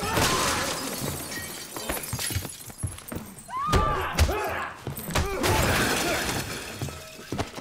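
Plate glass shattering and raining down as two fighters crash through a shop window, followed by heavy blows and thuds with shouted grunts. A second burst of breaking glass comes a little past halfway, as a man is slammed against a glass display case.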